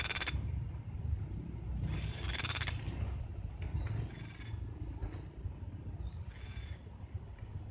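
An unseen animal calling: short, high-pitched calls repeated about every two seconds, four times, the first two loudest.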